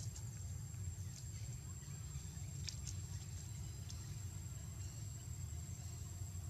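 Quiet steady low rumble of background noise with a faint high whine and a few soft clicks.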